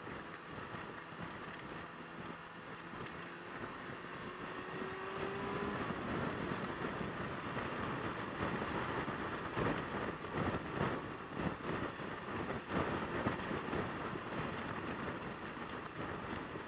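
Yamaha YZF600R Thundercat's inline-four engine running at speed, its note rising as the bike accelerates a few seconds in. Wind buffeting on the microphone then grows and gusts as the speed builds.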